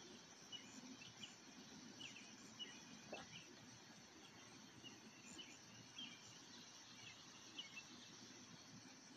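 Near silence: faint outdoor ambience with scattered, faint high chirps of small birds.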